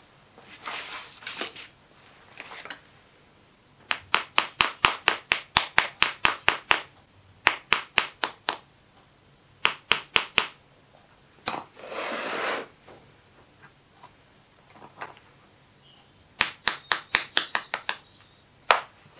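Sharp light taps in quick runs of about five a second, the longest a dozen or more, with shorter runs and single taps between: a spike set in a wooden pattern being rapped to loosen the pattern in the moulding sand before it is drawn out. A short rustling scrape about a second in and another midway.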